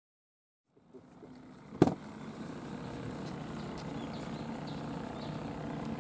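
Silence for the first second, then the sound fades in. A single sharp knock comes just under two seconds in, followed by a steady low rushing background noise with a faint hum.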